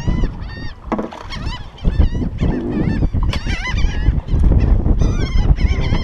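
A flock of gulls calling over and over, many short calls overlapping, as they work a bait school that has just been busted by feeding fish. A steady low rumble of wind on the microphone lies under the calls.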